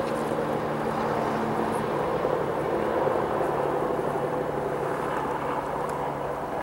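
EMD SD70MAC diesel-electric locomotive approaching at low speed, its 16-cylinder two-stroke EMD 710 diesel engine running with a steady drone.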